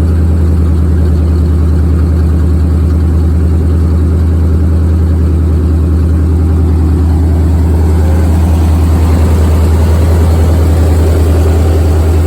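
Pickup truck engine idling steadily through headers and newly fitted Dynomax Race Bullet mufflers, with a deep, even exhaust note.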